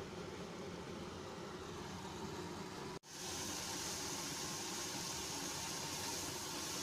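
Steady hum and hiss of background noise. It drops out for an instant about three seconds in, then comes back a little louder and hissier.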